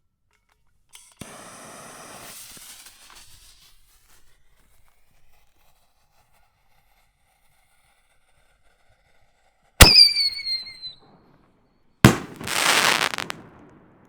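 A 6-inch single-break canister shell: a brief hiss as the fuse burns, then about eight seconds later a sharp bang with a short falling whistle as it is fired from the tube. About two seconds after that comes a second loud bang, the shell's burst, trailed by a second or so of rushing crackle.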